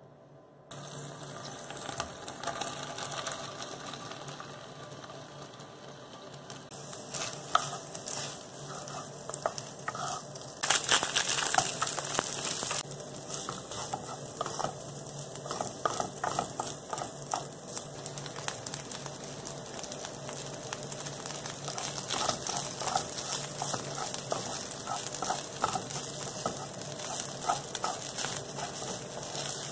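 Food sizzling in hot oil in a non-stick frying pan as fried rice with vegetables is stir-fried, with a wooden spatula scraping and tapping against the pan. The sizzle starts about a second in and is loudest a little past the middle.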